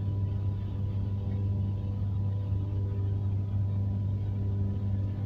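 Steady low mechanical hum from a sugarcane truck tippler holding a loaded truck tilted up to unload its cane, with a constant drone and a faint steady whine above it.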